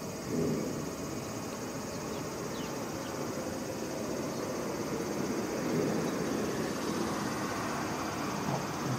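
Steady outdoor ambience: a low rumble of distant road traffic with a faint high insect drone over it.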